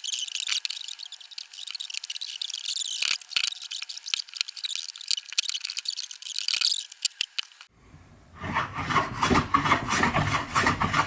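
Hand plane shaving pallet-wood stock in rasping strokes. The sound cuts off abruptly just before 8 seconds in, and a fuller-sounding run of quick strokes starts a moment later.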